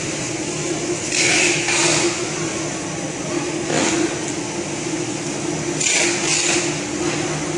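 Steady hum of an EPE foam laminating machine running, with three short swishing rustles as the foam sheet is handled.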